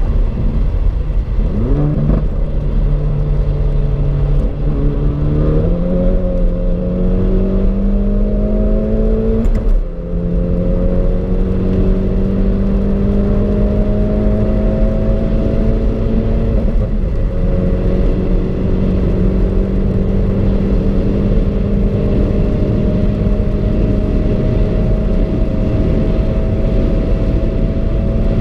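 Hyundai i30 N's turbocharged 2.0-litre four-cylinder, fitted with an upgrade turbocharger, under full-throttle acceleration from about 100 to 250 km/h: the engine note climbs slowly in pitch through each gear, with upshifts about ten seconds in and again about seventeen seconds in.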